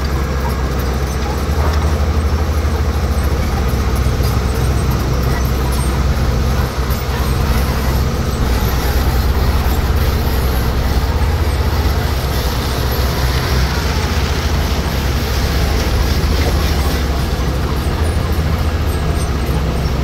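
Heavy diesel earthmoving machine running steadily, a continuous deep engine drone.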